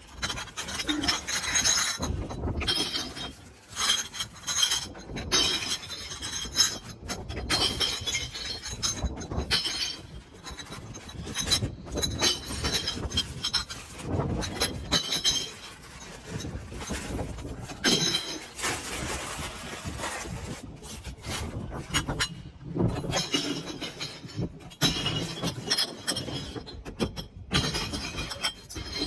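Small empty glass beer bottles dropped one after another into a public bottle bank, clinking and crashing onto the glass already inside. The impacts come several times a second, with ringing clinks between them.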